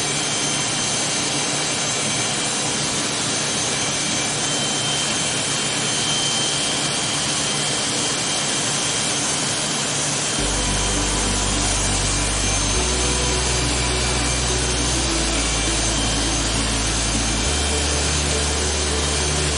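Electric hair clippers buzzing steadily as they cut short hair. A low bass line comes in about halfway through.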